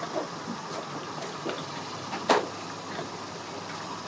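Steady outdoor background noise with a few faint knocks and one sharp knock a little over two seconds in.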